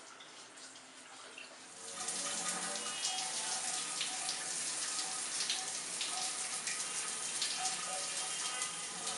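Shower running, water spraying and splashing, fainter at first and much louder from about two seconds in.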